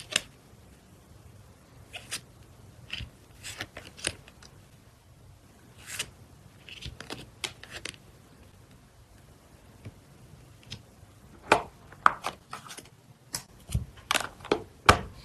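Hands handling album packaging: scattered crisp clicks, taps and crinkles of plastic and card, sparse at first and coming thick and fast over the last few seconds.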